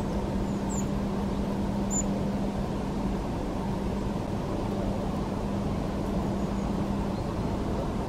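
Steady low rumble with a faint steady hum underneath, and two brief, high, thin chirps from a small bird, about one and two seconds in.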